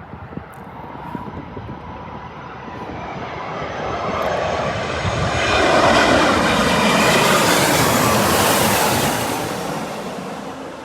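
Airbus A330 twin-jet airliner on approach passing low overhead: the jet engine sound swells over a few seconds, is loudest in the middle, then fades as the engine whine falls in pitch.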